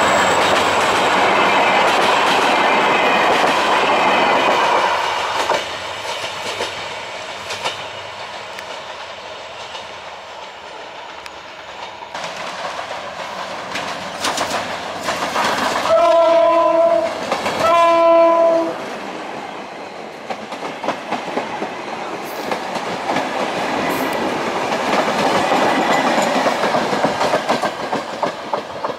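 Diesel-hauled passenger trains on the rails: the loud wheel clatter of a train passing close, fading to a quieter rumble, then two horn blasts of about a second each from a diesel locomotive a little past the middle, and the wheel noise swelling again as a train runs by.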